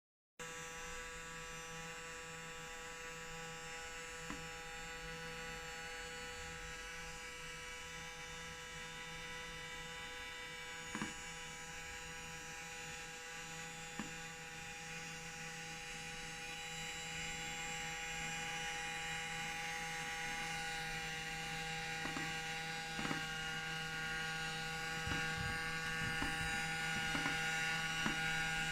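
Cheap robot vacuum cleaner running: a steady motor hum, growing louder in the second half, with occasional sharp clicks or knocks that come more often near the end.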